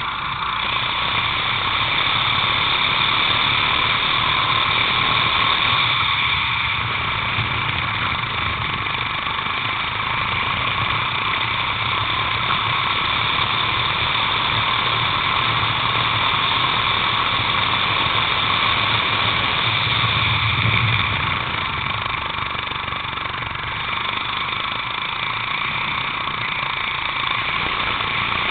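Racing kart engine running hard at high revs, heard close up from a camera mounted on the kart, its pitch staying fairly even with a brief dip in level about three quarters of the way through.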